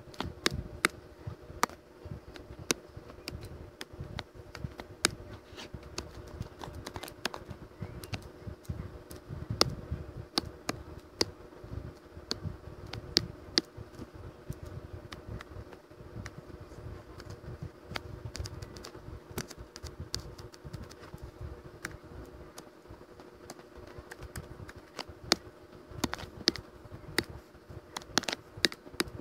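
Irregular clicking and tapping, several clicks a second in uneven runs, over a steady low hum.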